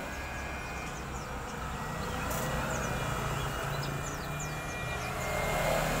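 A caged white-eye gives scattered short, high chirps over a steady low rumble of vehicle engine noise, which grows louder in the second half.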